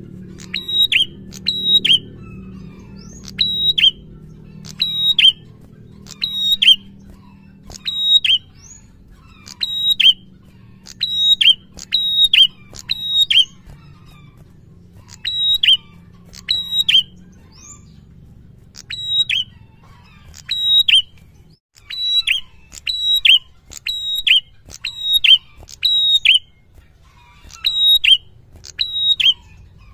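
Caged red-headed prenjak singing continuously: loud, sharp, high chirps, each a quick falling note, repeated in clusters of two or three about every one to two seconds.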